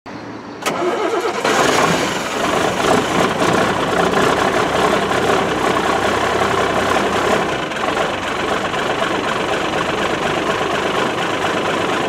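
An engine starting: a sharp click, then the engine catches and runs steadily and loudly.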